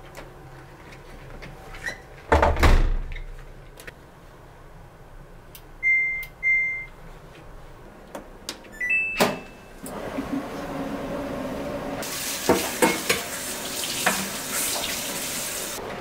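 Front-loading washing machine: its door shuts with a thud about two and a half seconds in, the control panel gives two short beeps near six seconds and another near nine as buttons are pressed, then the machine starts with a steady rushing sound of water filling the drum from about twelve seconds.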